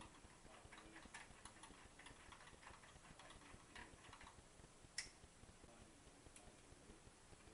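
Faint, irregular small metal clicks and ticks of a truncated Allen wrench turning the backlash nut on a lathe's cross-slide drive screw, with one sharper click about five seconds in.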